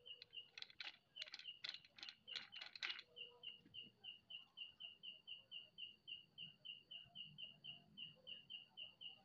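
Faint, high-pitched chirps at one steady pitch, repeating about three or four times a second. A flurry of sharper, quicker chirps comes over them in the first three seconds.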